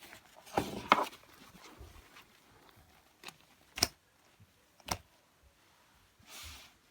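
Toys being handled: a cluster of knocks and rattles about a second in, then two sharp clicks about a second apart, and a short rustle near the end.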